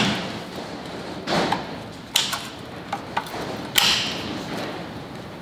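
Hand tools working the return springs of a rear drum parking brake shoe: a series of sharp metallic clicks and clanks, about half a dozen, the loudest near four seconds in with a short ring.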